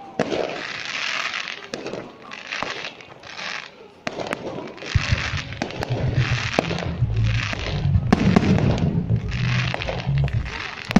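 Fireworks going off: repeated bursts of crackling with sharp bangs between them. From about five seconds in, bass-heavy music plays underneath.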